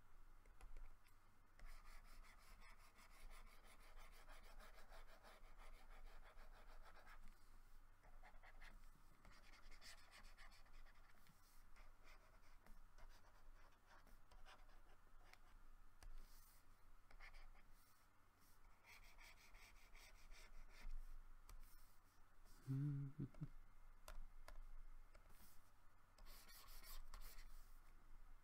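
Faint, repeated scratching of a stylus drawing strokes on a graphics tablet, coming in stretches, over a steady low electrical hum. A short low hum-like sound stands out once, late on.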